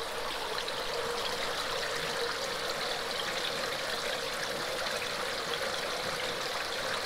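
Steady running water, a continuous trickling splash of water pouring into a circular trout-rearing tank from its inlet spray bars.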